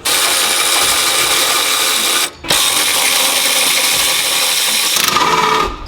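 Power drill driving in a bolt, running in two long stretches with a short pause about two seconds in.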